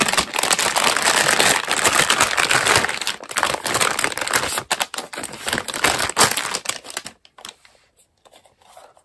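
Clear plastic packaging bag crinkling and rustling as it is handled and opened and parts are pulled out of it. The crinkling stops about seven seconds in.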